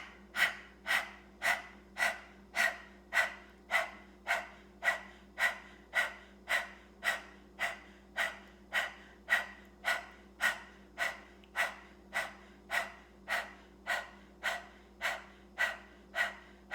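A woman doing panting dog breath, a Kundalini yoga pranayama: rapid, rhythmic panting at about two breaths a second, even and sustained.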